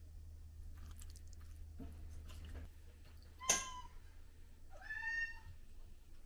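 A cat meowing twice: a short meow about three and a half seconds in, then a longer one about a second later.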